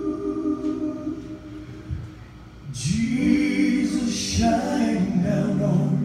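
Male vocal trio singing a cappella in close harmony into microphones. A held chord fades away over the first two seconds, and after a brief lull the voices come in together on a new phrase about three seconds in and hold it.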